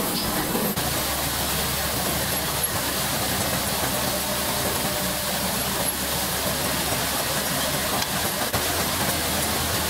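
Steady machine noise from an automatic wire ferrule assembly machine running: an even hiss over a low hum, with no single knocks standing out. The tone shifts slightly under a second in.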